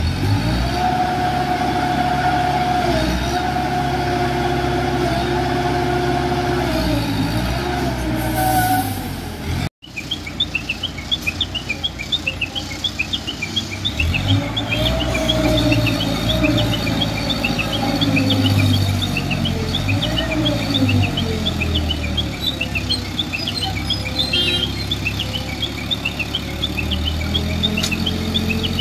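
Heavy diesel engines of a crane and a truck stuck in soft earth run and rev, their pitch rising and falling as they work to free the truck. There is a cut about ten seconds in. After it, rapid high bird chirping sounds over the engines.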